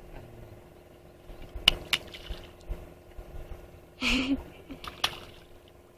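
Short splashes and sharp knocks from a large hooked fish thrashing at the surface beside a small wooden boat: two quick knocks, a louder rushing splash about four seconds in, then one more knock.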